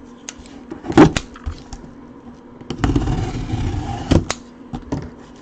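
A mini helmet box being opened by hand: cardboard packaging handled and rustled, with a sharp knock about a second in and another about four seconds in.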